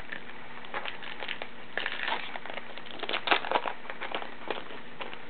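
Baseball card pack's wrapper crinkling and tearing as it is opened by hand, in two spells of crackling, one about two seconds in and a louder one about three seconds in.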